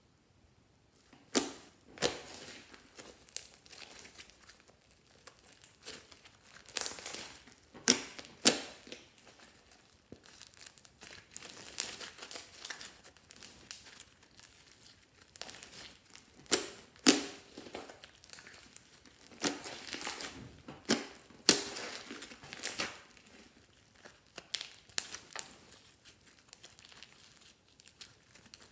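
Irregular crinkling and tearing from slime-making materials being handled by hand, with scattered sharp crackles and pauses between bursts.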